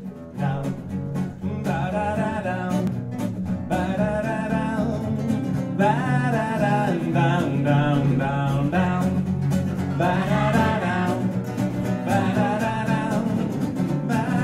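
Live band playing a song's intro: acoustic guitars strumming a steady rhythm, with a bending, wavering lead melody line over them.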